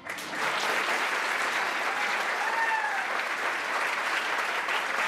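Theatre audience breaking into applause as a musical number ends. The clapping starts suddenly and keeps up a dense, steady level.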